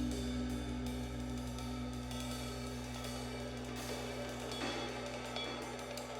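Background music with cymbals and hi-hat over held tones, slowly fading out.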